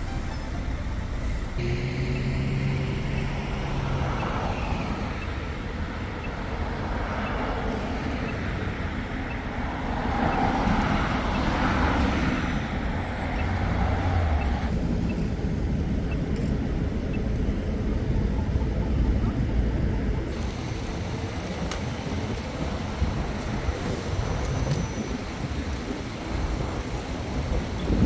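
City road traffic: a steady rumble of cars and heavier vehicles passing on the street.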